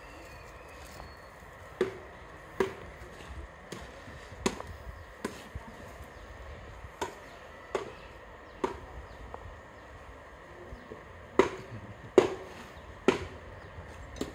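Irregular sharp taps and knocks of a small steel trowel cutting and trimming wet mortar, roughly one every second, with three louder strikes close together near the end.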